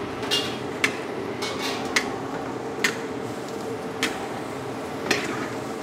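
Metal spatula scraping and knocking against a giant metal wok during stir-frying of a heaped load of cabbage and greens. About seven sharp clanks come at irregular intervals over a steady hum.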